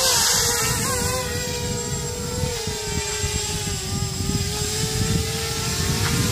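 Small 250-size quadcopter with brushless motors flying, its propellers giving a steady buzzing whine. The pitch sags slowly and then rises again near the end as the throttle changes.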